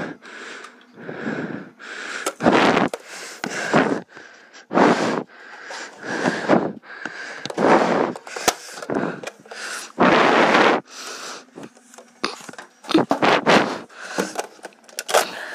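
Heavy, fast breathing right against the microphone, roughly one breath a second. A few sharp clicks are mixed in.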